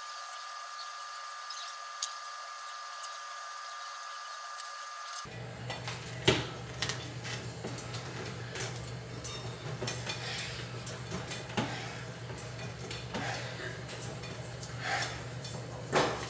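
Weighted pull-ups on a doorway pull-up bar with about 35 pounds of weight: scattered metallic clinks and knocks from the weight and the bar as the reps go, over a steady low hum, the loudest knocks about six seconds in and near the end.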